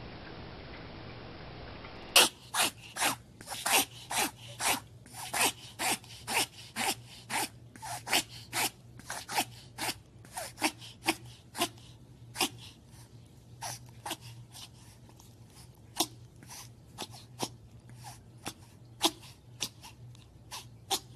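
A dog reverse sneezing, a pharyngeal gag reflex: a long run of sharp, forceful noisy inhalations through the nose, about two or three a second, coming further apart toward the end. It starts about two seconds in, after a steady low hiss.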